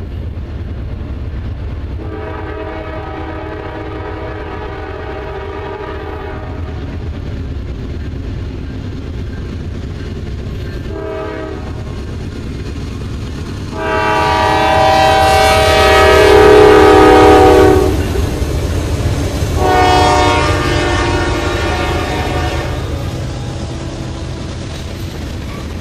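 Norfolk Southern diesel freight locomotive sounding its air horn as it approaches and passes: a long blast, a short one, then two more long blasts, the loudest as the locomotive goes by. Under the horn the diesel engines rumble steadily, and near the end the freight cars roll past with wheels clattering over the rail joints.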